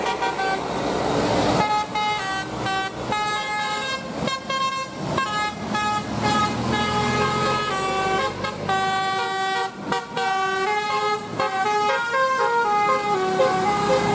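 Bus telolet horn, a set of tuned air horns, playing a quick melody of stepped notes that starts about a second and a half in, over steady traffic noise.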